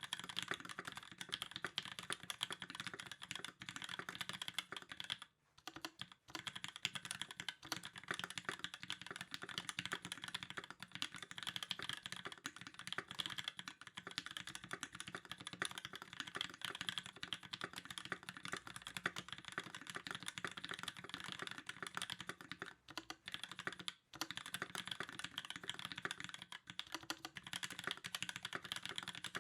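Fast continuous typing on a custom KIRA EXS mechanical keyboard with a brass plate, lubed 67g C³ Tangerine linear switches and GMK doubleshot ABS keycaps: a dense stream of key clacks, pausing briefly twice.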